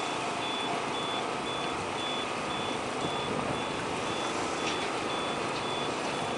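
An electronic warning beeper, one high tone pulsing about twice a second, over steady outdoor background noise.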